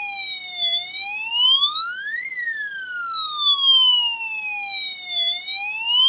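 Ambulance siren effect from a UM3561A sound-effect chip, played through a small 8-ohm speaker driven by a 2N2222 transistor. It is a thin electronic wailing tone that climbs to a peak about two seconds in, slowly falls for about three seconds, then climbs again near the end.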